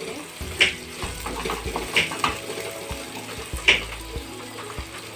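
Sliced onions sizzling in hot oil in a nonstick kadhai as a wooden spatula stirs them, its strokes scraping the pan four times, a second or so apart. The onions are being fried lightly until they turn reddish-brown.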